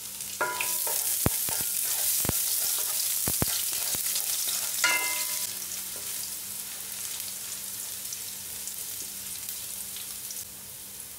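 Minced garlic sizzling in hot cooking oil in a nonstick wok as a wooden spatula stirs it, with a few sharp knocks of the spatula against the pan in the first few seconds. The sizzle is the stage of sautéing garlic for the base of the dish.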